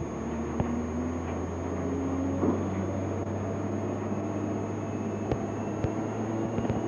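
Diesel engine of heavy earthmoving plant running steadily, with a few sharp clicks scattered through it.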